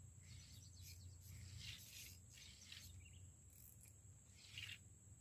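Near silence: faint outdoor ambience with a low hum and a few soft, brief hissing swishes.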